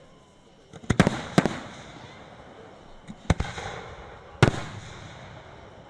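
Fireworks bursting at a display: a quick cluster of three sharp bangs about a second in, then single bangs at about three and four and a half seconds, each trailing off in a fading rumble and crackle.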